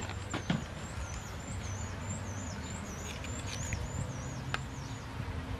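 A small bird singing a run of high, wavering whistled notes, about three a second, stopping shortly before the end. A few light clicks of handling occur near the start and once near the end.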